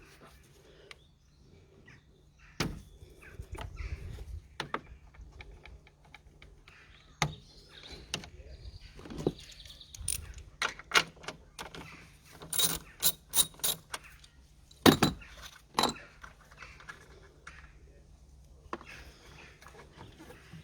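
Scattered clicks and knocks of hand tools and plastic clips as the coolant reservoir is unclipped and unbolted in the engine bay, with a quick run of clicks a little past the middle.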